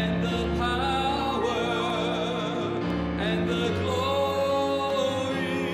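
Music: a solo singer holding notes with a wide vibrato over sustained accompaniment chords, in an operatic style. The notes change about three seconds in.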